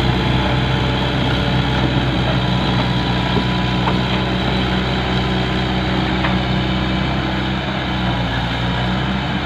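Heavy diesel engine of an excavator or truck running steadily at a constant speed, a low even drone.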